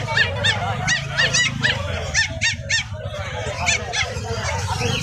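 Caged puppies yelping: a rapid run of short, high-pitched yelps, bunched in the first three seconds and thinning out after. A steady low rumble sits underneath.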